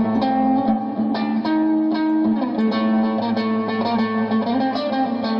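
Electric guitar played live, a run of picked notes ringing over a steady low held note.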